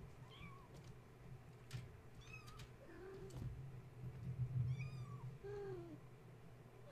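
Four-week-old kittens mewing: about six short calls, some high squeaks and a couple of lower, falling mews, over a steady low hum.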